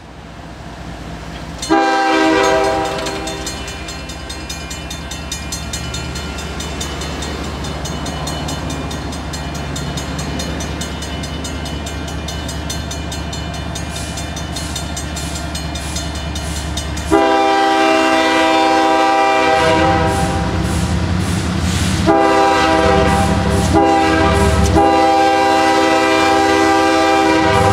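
Approaching CSX freight train's diesel locomotive sounding its air horn: one blast about two seconds in, then near the end the grade-crossing signal of two long blasts, a short and a long. Under it the low rumble of the locomotive's diesel engines grows louder as the train nears, with a crossing bell dinging steadily.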